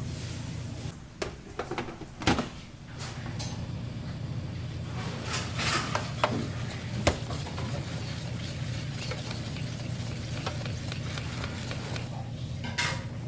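Restaurant ambience: a steady low hum with scattered clinks and knocks of dishes and utensils, several near the start and a sharp one about seven seconds in.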